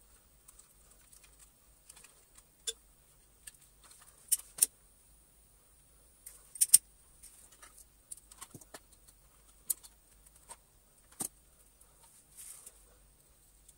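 Irregular sharp clicks and taps of small parts and tools being handled while a cordless vacuum cleaner is reassembled. The loudest is a quick pair of clicks about halfway through.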